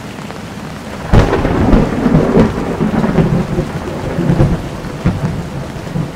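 Thunderclap about a second in over steady rain, breaking into a long rolling rumble that slowly dies away.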